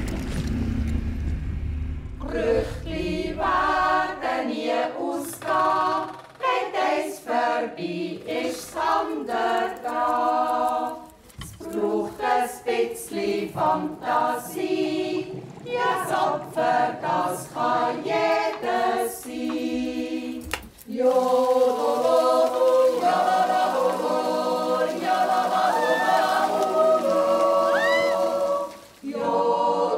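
Unaccompanied singing: a voice sings short phrases, and from about twenty seconds in several voices hold chords together. A low rumble of wind dies away in the first few seconds.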